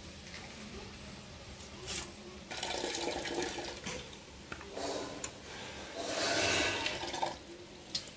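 Coconut milk squeezed by hand from a cloth bundle of ground coconut, trickling and splashing into a pot of milk below, in two louder spells a few seconds in and again past the middle.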